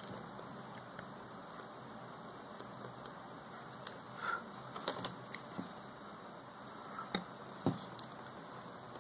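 A few light clicks and taps from small hand tools touching a phone's circuit board and metal frame, scattered over a steady hiss, with the sharpest taps a little after the middle.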